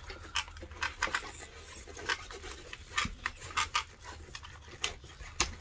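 Irregular small clicks and rubbing of RC buggy parts and tools being handled and fitted by hand, over a low steady hum.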